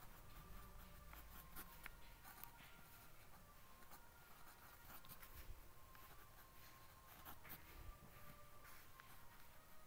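Ballpoint pen writing on paper: faint scratching strokes of the pen tip, in short irregular bursts.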